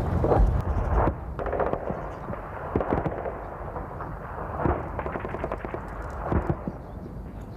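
Battle sounds: scattered gunshots and heavier blasts, coming every second or two over a steady low rumble, loudest in the first second.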